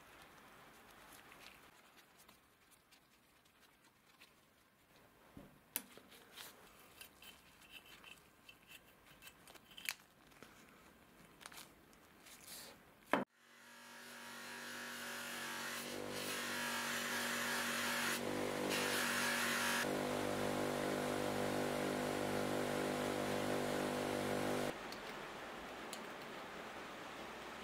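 Light clicks and handling noise from gloved hands working a small wire and cord. About halfway, an electric bench grinder fitted with a buffing wheel takes over, running with a steady hum that grows louder over a few seconds, with a part held against the spinning wheel for polishing. It drops away near the end.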